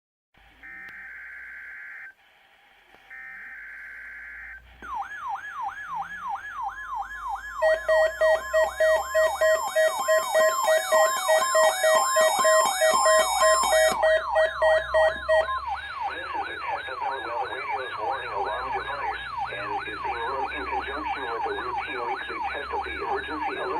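Two short bursts of NOAA Weather Radio's SAME data header, then an electronic warning siren sweeping up and down about three times a second, joined by pulsing beeps and higher warbling alarm tones. This is a weekly test of the weather radio's warning alarm device.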